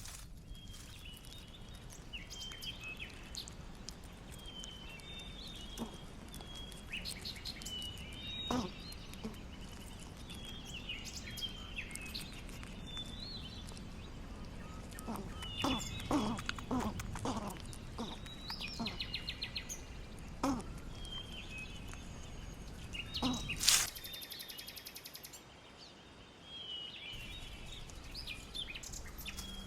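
Small birds chirping in short phrases every few seconds over a steady outdoor background hum, with scattered soft clicks and one short loud noise about four-fifths of the way through.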